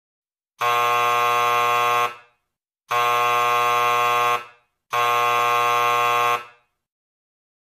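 Theatre buzzer sounding three times, each a steady buzz of about one and a half seconds with short gaps between, tailing off briefly at the end of each: the three signals that announce a play is about to begin.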